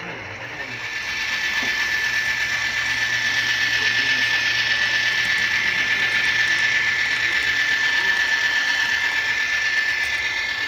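Kato AC4400CW model diesel locomotive running along the track: its motor and gear drive whir with a steady high whine over a hiss, getting louder about a second in as it comes close.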